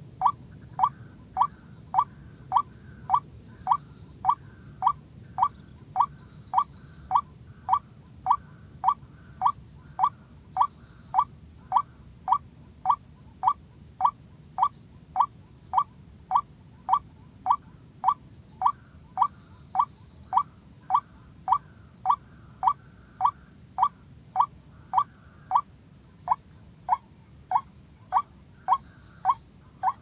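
White-breasted waterhen call: a short, sharp, rising note repeated about twice a second in a steady, monotonous series.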